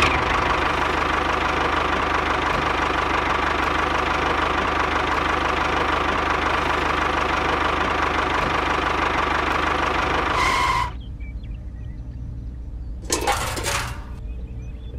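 A small motor running steadily with a constant whine, cutting off abruptly about eleven seconds in. A short rattling burst follows about two seconds later.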